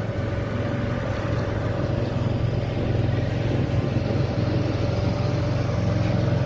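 A motor engine running steadily with a constant, even hum.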